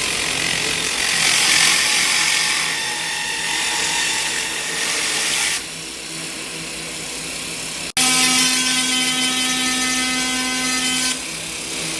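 Pulse laser cleaning machine firing at a surface: a loud, even hiss that stops about five and a half seconds in, then a second run with a steady whine in it for about three seconds near the end. The machine's hum carries on underneath.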